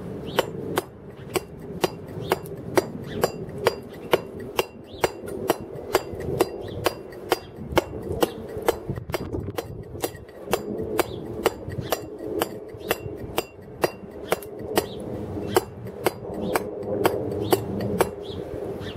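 Round wooden carver's mallet striking a chisel into a block of white stone. The blows come steadily at about two a second, each a sharp tap, and stop shortly before the end.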